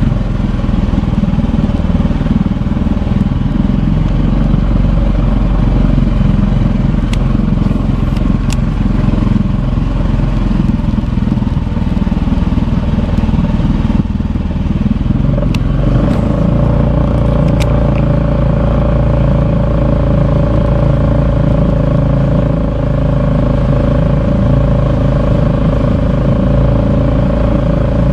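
A small engine running steadily, its pitch changing about halfway through, with a few faint clicks.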